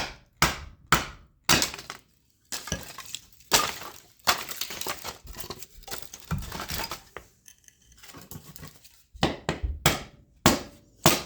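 Axe splitting dry oak into kindling: a quick run of sharp chops about two a second, then several seconds of split wood clattering and knocking, then another run of chops near the end.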